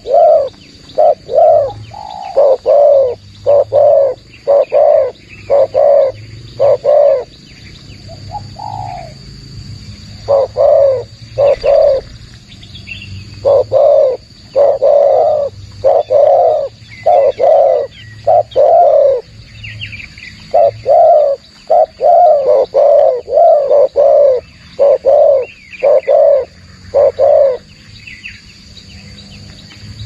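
Spotted doves cooing loudly in bouts of short, repeated low coos, about two a second, with brief pauses between bouts and a longer silence near the end. Faint chirps of small birds sound higher up.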